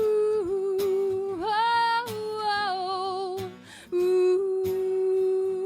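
A singer vocalising a wordless 'ooh, oh' passage in a song: long held notes with vibrato, broken by a short pause about three and a half seconds in, over a musical backing with sharp regular strokes.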